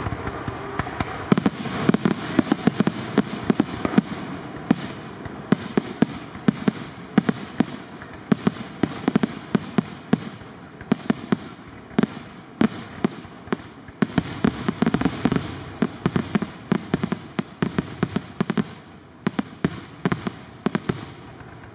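Aerial fireworks display: a rapid barrage of shell launches and bangs from bursting shells, several a second, often overlapping, growing dense about a second in.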